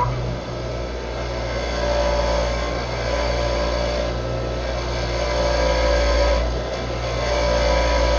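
Hand-held power tool running continuously as it cleans off a fitting on the air compressor, its motor pitch steady and its loudness swelling and dipping as it is pressed on and eased off.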